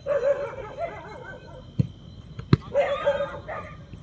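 Footballers shouting on the pitch, with two sharp thuds of the ball being kicked, about two seconds in and again half a second later. A steady high whine runs underneath.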